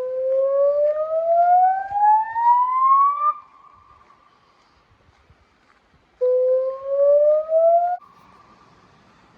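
Electronic river warning siren sounding through Bosch LBC-3406 horn loudspeakers: a tone rising steadily in pitch for about three and a half seconds and cutting off suddenly, then a second, shorter rising sweep from about six seconds in, also cut off. Between and after the sweeps a fainter steady tone lingers.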